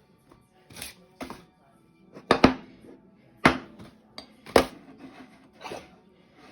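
About seven short, sharp kitchen clatters and shakes at irregular intervals, from containers and utensils being handled while chicken breasts are seasoned, over faint background music.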